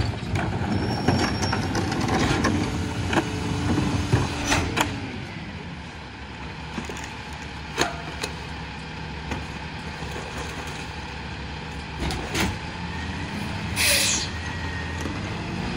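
Freightliner Econic garbage truck idling while a trash cart is tipped and bags are thrown into the McNeilus rear-loader hopper, with scattered clanks and knocks, busiest in the first few seconds. A short sharp hiss of air from the air brakes releasing comes near the end, just before the engine speeds up as the truck pulls away.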